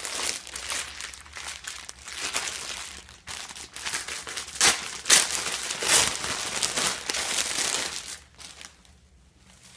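Clear plastic bags and tissue-paper packaging crinkling and rustling as hands lift and pull them out of a box, in uneven bursts that stop near the end.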